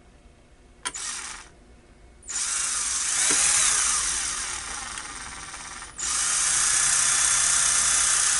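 Small cordless drill drilling out a rounded-top rivet in a metal battery-holder bracket. A brief burst comes about a second in. The drill then starts just after two seconds, its whine sliding in pitch under load, eases off, and jumps back up near six seconds to run steadily.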